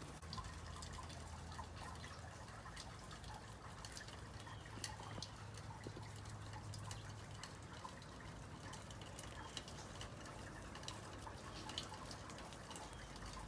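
Meltwater dripping from melting snow: scattered, irregular sharp drips over a faint steady low hum.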